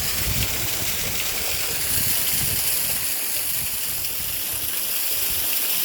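Water from small waterfalls in an irrigation ditch, rushing and splashing steadily.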